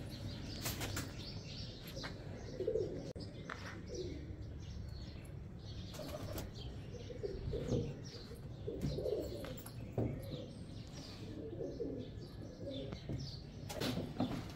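Teddy pigeons giving soft, low coos every second or two, with a few brief wing flutters, one of them about half a second in.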